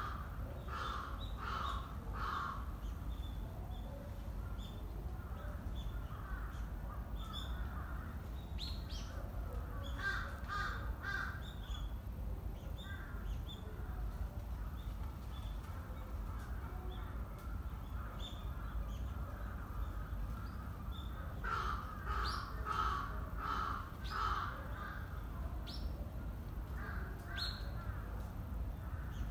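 A bird calling in short runs of four or five calls: near the start, about ten seconds in, and again just past twenty seconds. A steady low outdoor rumble runs underneath.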